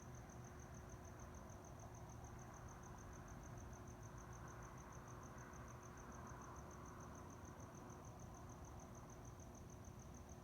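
Faint night-time cricket chirping: a high pulsed note repeating evenly about five times a second, over a low hum.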